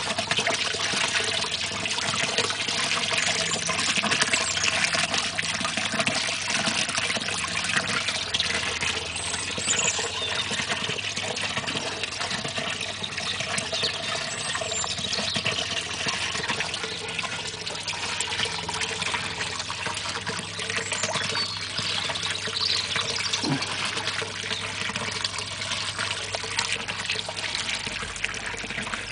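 A small garden water feature running steadily: water spills over the lip of a three-lobed stone bowl and splashes and trickles into the pool of a half-barrel reservoir below.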